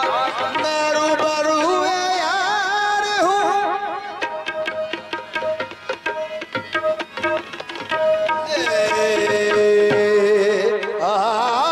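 Devotional Urdu kalam in qawwali style: a male voice sings wavering melismatic runs over tabla strokes and a steady held harmonium drone. The voice drops out for a few seconds mid-way, leaving tabla and drone, then returns.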